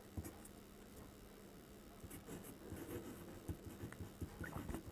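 Faint scratching of a pen writing on paper, in short strokes starting about two seconds in.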